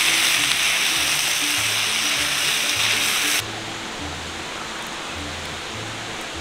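Background music with a low, steady bass line. Over it for the first three and a half seconds, a loud hiss of a rice-noodle and vegetable stir fry sizzling in a cast iron skillet over campfire coals, which cuts off abruptly, leaving a quieter outdoor hiss under the music.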